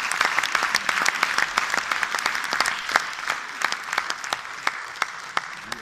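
Audience applauding, many hands clapping together, slowly dying down near the end.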